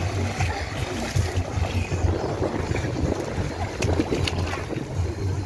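Shallow sea water sloshing and splashing around children wading and thrashing in the waves, with a steady low rumble of wind buffeting the microphone.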